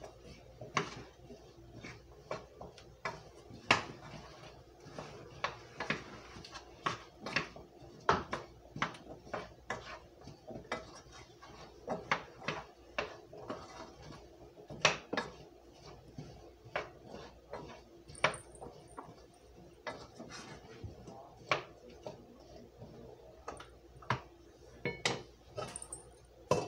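Wooden spoon stirring diced apples in a frying pan, knocking and scraping against the pan in irregular clicks about once or twice a second.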